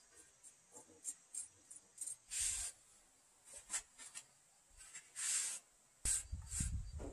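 Steel masonry trowel scraping and scooping wet mortar, two longer scrapes among light clicks of the blade. Near the end come dull thuds as mortar is slapped and pressed onto the stone-and-brick wall.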